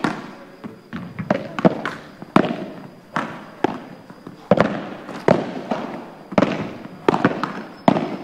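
Padel ball being hit back and forth: sharp pops of rackets striking the ball and the ball bouncing off the court and walls, two or three a second at an uneven pace, each with a short echo.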